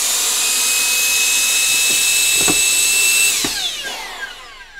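Electric vacuum suction tool for lifting LED wall modules, running with a steady high-pitched whine, then switched off about three seconds in and spinning down with a falling whine, releasing the module. Two short knocks come as the module goes back onto the wall.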